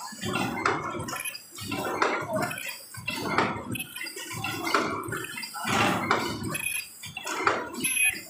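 Automatic paper cup forming machine running, its mechanism clattering in a steady repeating cycle of knocks and hissing strokes, about one or two a second.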